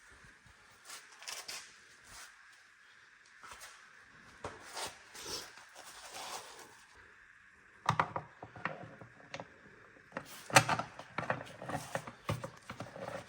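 Handling noise: scattered clicks and light knocks of hard objects being moved about, turning into a busier run of sharp knocks and clatter in the second half.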